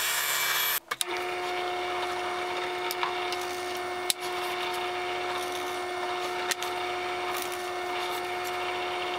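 A workshop machine running steadily with a constant hum and hiss, and a few sharp clicks and knocks, about four in all, from wood or tools being handled.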